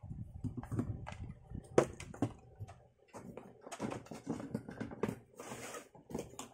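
Handling noise from unboxing: rustling packaging, with clicks and knocks of hard plastic tool parts being set down and moved about in a cardboard box. The sharpest knock comes just under two seconds in.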